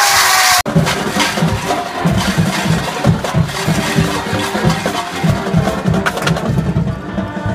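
Crowd cheering, cut off abruptly under a second in. Then drums play a fast, busy rhythm with sharp stick clicks.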